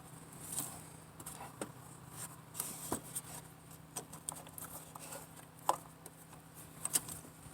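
Faint, scattered light clicks and taps of fingers working a loosened 10 mm bolt and small parts, over a low steady hum.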